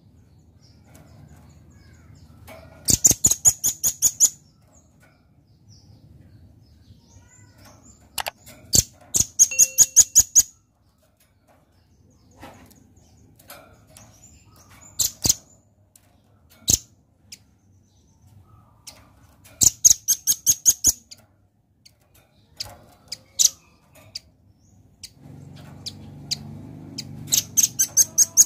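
Velvet-fronted nuthatch calling: four quick rattles of sharp, very high chips, about eight a second and a second or so each, with single chips scattered between.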